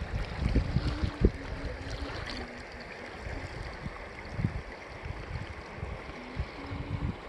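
River water swishing and lapping around kayaks, with wind buffeting the microphone in low thumps, strongest in the first second or so.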